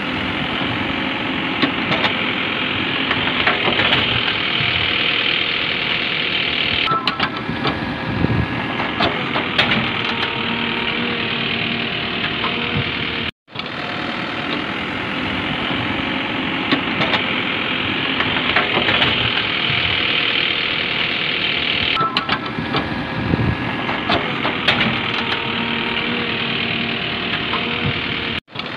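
Engine sound effect running steadily with scattered clicks, played as a loop of about fifteen seconds that restarts with a brief dropout about halfway through and again near the end.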